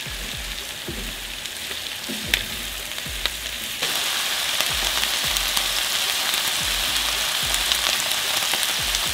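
Grated carrot and onion sizzling in oil in a frying pan, stirred with a wooden spatula that gives soft knocks. About four seconds in, this gives way to a louder, steady sizzle of lamb cubes frying in oil.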